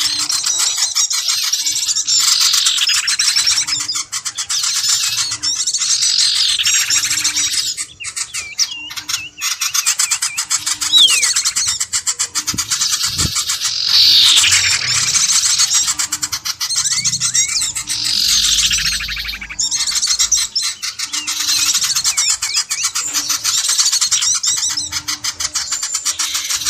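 Dense chorus of many small birds chirping and twittering without a break, with a loud falling call that recurs several times: a bird-lure (pikat) recording played to draw wild birds in.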